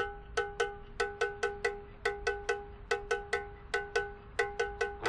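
Background music: a ringing metal percussion instrument, bell-like, struck in a quick repeating rhythm of about four to five notes a second.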